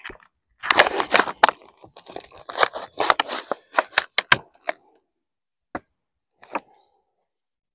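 Plastic film being peeled and torn off a meat tray, a dense run of crinkling and crackling for about four seconds, followed by two single short crackles.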